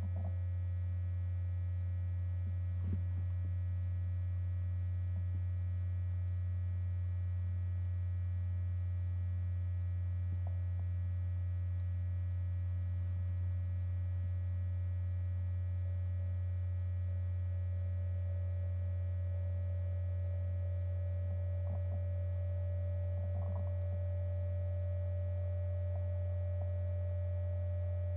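Steady low electrical hum, with a faint click about three seconds in.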